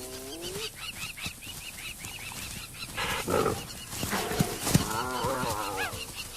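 Spotted hyenas and cheetahs calling and snarling in a standoff over a kill. A drawn-out call rises in pitch at the start, a harsh snarl comes about three seconds in, and a wavering call follows from about four to six seconds, all over a run of high, repeated chirps several times a second.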